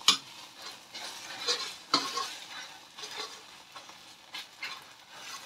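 Egg and garlic-chive omelette sizzling in sesame oil in a metal wok, with a metal spoon scraping and tapping against the pan several times as it is worked.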